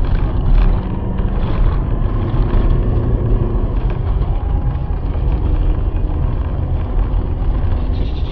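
A moving car: steady low road and engine rumble.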